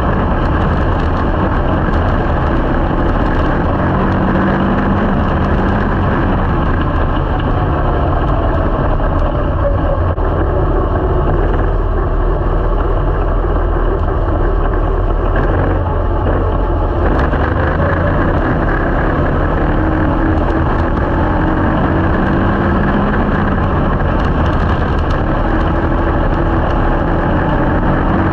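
A junior Slingshot race car's engine running hard at racing speed, heard from inside the open cockpit. It runs loud and continuously, and its pitch sags and climbs again partway through, as if easing off and getting back on the throttle.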